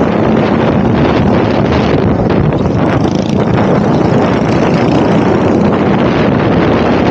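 Modified-class racing minibike's small engine running at racing speed, heard from on the bike, with wind buffeting the microphone.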